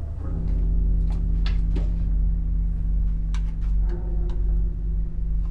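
Bowed banjo holding one steady sustained note over a deep low hum, with several short scratchy clicks from the bow and strings scattered through it.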